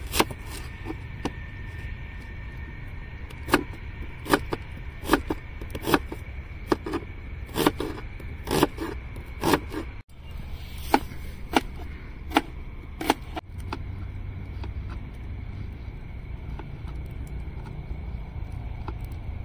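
Knife chopping vegetables (onion and potato) on a cutting board: single sharp chops at an uneven pace, about one every half second to a second. The chopping stops about two-thirds of the way through, leaving a steady low rumble.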